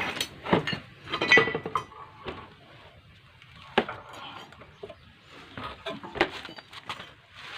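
Metal scooter drum-brake parts and tools clinking and knocking as they are handled and set down: a flurry of clinks about a second in, a single one near the middle, and a few more later.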